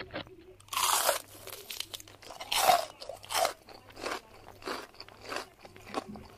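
Crisp panipuri shells crunching as people bite into them and chew, in irregular bursts, the two loudest crunches about a second and about three seconds in.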